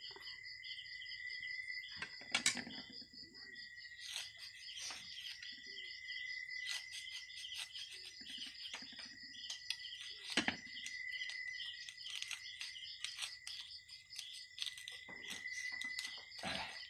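Night insects, crickets among them, trill steadily at several high pitches. Over them come scattered sharp snaps and rustles from leafy vegetable stems being cut and torn by hand with a knife over a plate, with a few louder snaps about two and a half seconds, ten seconds and sixteen seconds in.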